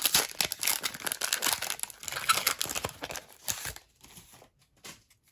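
Crinkly foil wrapper of a Pokémon booster pack being torn and pulled open by hand. The crackling runs for nearly four seconds, then thins to a few faint rustles.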